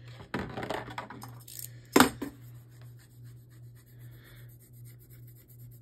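Small plastic toy parts handled and set down on a plastic Beyblade stadium: a brief rustle, then one sharp clack about two seconds in, with a few lighter ticks after it. A low steady hum runs underneath.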